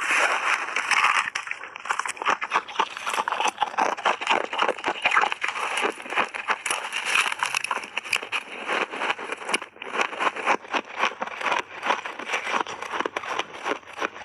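Shaved ice with frozen mixed berries crunching close to a clip-on microphone: a metal spoon digs into the ice near the start, then mouthfuls are chewed in a dense, continuous stream of crackles.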